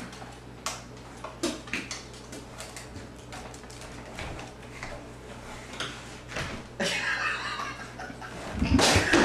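A pet-door flap tapping and rattling as a dog pushes its head and body through it, with scattered clicks throughout and a louder, noisier stretch near the end.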